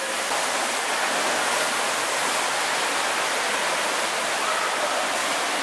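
Steady rushing of churning water in a wild-water rafting pool.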